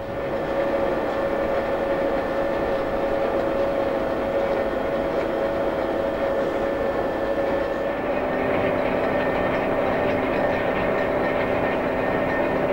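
Heavy lifting crane's diesel engine and hydraulics running steadily, with a steady whine over the engine noise. The sound comes up at the start, and a lower hum joins about two-thirds of the way through.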